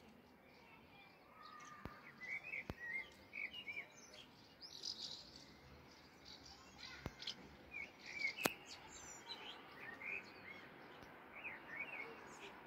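Faint chirping calls of house martins flying overhead: many short, twittering notes, several a second, with a few soft clicks among them.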